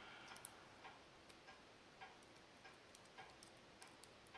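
Near silence with faint, irregular light clicks of small metal parts handled by fingers: ratchet pawls being fitted into a bicycle hub's brake cone.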